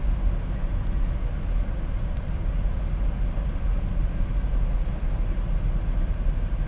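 Car running, a steady low rumble of engine and road noise heard from inside the cabin.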